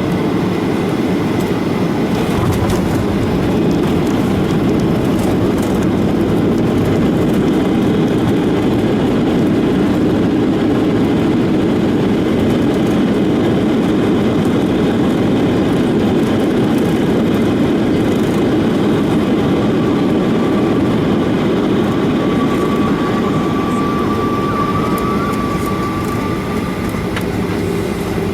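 Steady, loud airliner cabin noise of engines and airflow, heavy in the low-mid range. A faint steady whine runs for several seconds toward the end.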